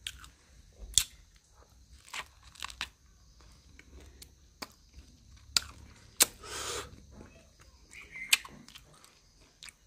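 A person biting and chewing corn on the cob: scattered sharp crunches and clicks, with a longer noisy burst just after six seconds.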